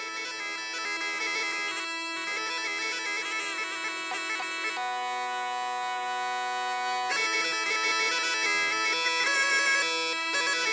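Croatian folk bagpipe playing a lively, ornamented tune over a steady drone. Near the middle the melody pauses for about two seconds on one held chord, then picks up again.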